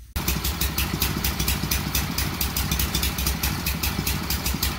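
Small gasoline engine of a pressure washer running steadily with a fast, even pulse; it cuts in suddenly at the very start.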